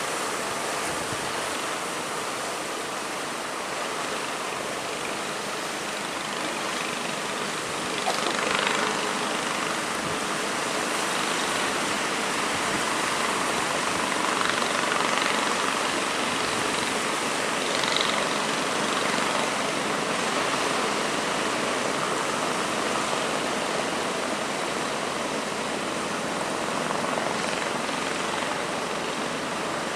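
Big sea waves surging and breaking in rough weather, a steady rush of surf that swells louder several times.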